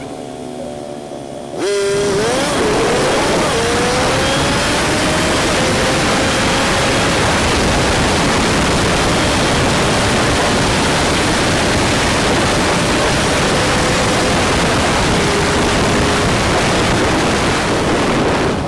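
Honda CG125 single-cylinder four-stroke motorcycle riding at speed. About a second and a half in, a loud, steady rush of wind and road noise sets in abruptly over the engine, whose note rises briefly as it accelerates, and stays until just before the end.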